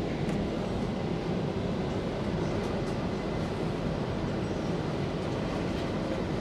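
Stockholm metro C20 train running at speed, heard from inside the carriage: a steady low rumble of wheels on rail with a few faint clicks.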